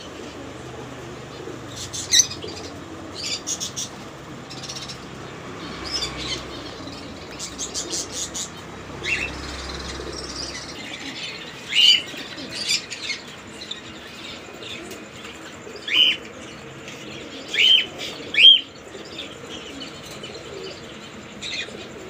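A flock of caged lovebirds chirping: short, sharp, high-pitched chirps and chatter scattered throughout, with a few loud calls in the second half, over a steady background noise.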